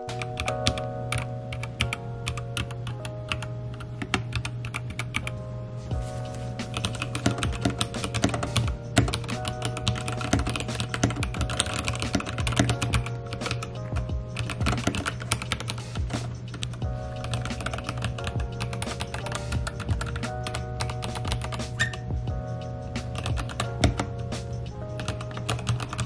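Fast, continuous typing on a mechanical keyboard with Gateron Black linear switches, not yet lubed, giving a dense run of keystroke clacks. Background music plays underneath.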